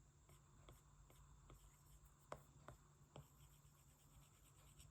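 Faint ticks and light scratches of a stylus tapping and stroking on a tablet's glass screen, several short taps spread unevenly, over near silence.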